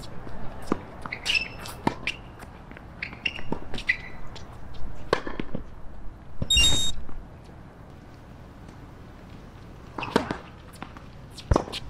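Tennis on an outdoor hard court: short shoe squeaks and ball taps between points, and a brief loud rush of noise about halfway. Near the end, a serve is struck with a sharp racket-on-ball pop, and the return is hit about a second and a half later.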